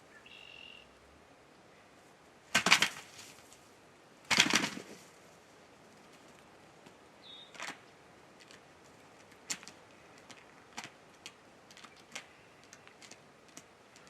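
A wild turkey jake gobbling twice close by, two loud rattling calls about a second and a half apart. Afterwards there is a scattering of short, sharp clicks and a few faint high chirps.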